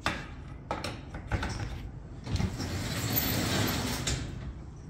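Laguna fiber raku kiln's top-hat shell being raised on its frame. A few knocks come in the first second and a half, then a steady rushing, sliding noise lasts nearly two seconds as the shell goes up.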